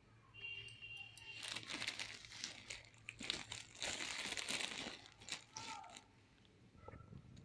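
Thin plastic bags of stacked biscuit cups crinkling and rustling as they are handled. The crackle starts about half a second in and dies away about six seconds in.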